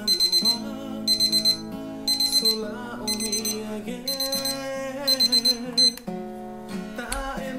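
Tanita digital kitchen timer sounding its alarm: groups of about four quick high beeps roughly once a second, which stop about six seconds in.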